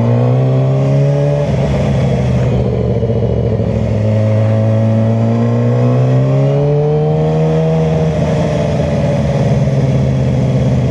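Yamaha R6's inline-four engine running while riding. The revs drop at the start, hold steady, then climb about six seconds in and ease off again.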